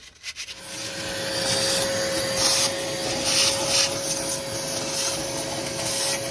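Vacuum cleaner switched on about half a second in, running with a steady whine and a rushing hiss that surges as the hose nozzle sucks dust from around a Yanmar marine diesel engine.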